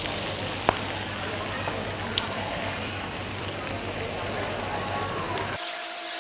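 Korean BBQ meat sizzling on a hot griddle pan, a steady frying hiss with a sharp click about a second in and a light tick a little later. Near the end the sizzle cuts off suddenly and a steady two-note tone takes over.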